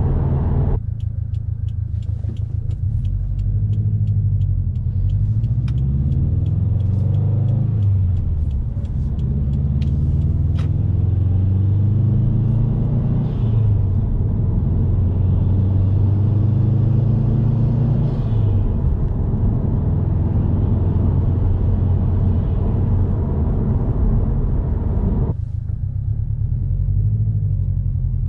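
Subaru WRX STI's turbocharged flat-four engine driving, its pitch rising and falling through revs and gear changes, with the louder induction noise of a newly fitted aftermarket intake. Light fast ticking runs through the first ten seconds.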